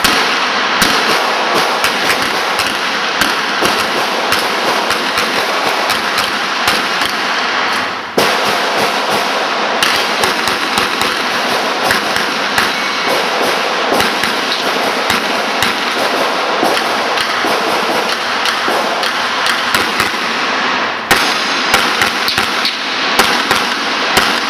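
Handgun shots fired in quick, irregular strings over a steady background noise, with short breaks about 8 and 21 seconds in.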